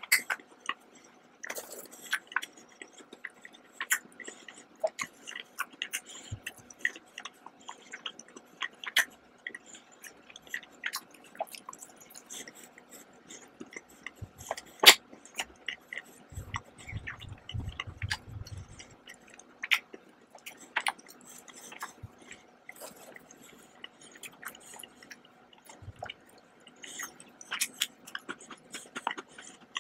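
Close-miked mouth chewing with the lips closed: many irregular wet clicks and smacks, one sharp click about halfway the loudest, followed by a brief low rumble. Near the end a bite into a Mickey-shaped cookie.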